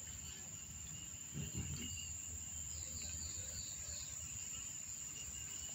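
Steady high-pitched drone of insects, with a faint low murmur about a second and a half in.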